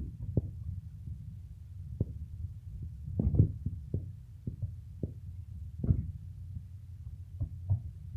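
Hands kneading and pressing a lump of slime on a tabletop: irregular dull thumps and soft squishes, over a steady low rumble.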